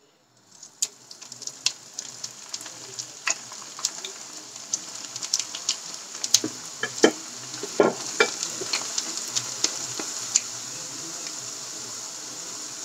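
Diced food frying in hot sunflower oil in a wok: a sizzle that starts half a second in, builds, and holds steady, with many sharp crackles and pops, thickest around the middle. The cubes are stirred with a slotted spatula.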